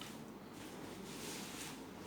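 Soft rustling of packaging being handled while a boxed fishing rod is unpacked, coming in short swells, one about halfway through and one near the end.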